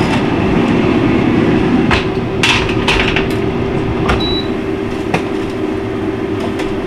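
Air fryer oven fans running with a steady hum, while wire racks of chicken wings are slid out with several metal clanks and rattles. A short electronic beep from the oven's control panel sounds about four seconds in.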